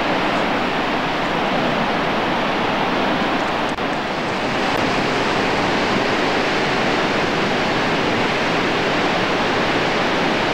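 Steady rushing roar of the Vøringsfossen waterfall plunging into its rocky gorge.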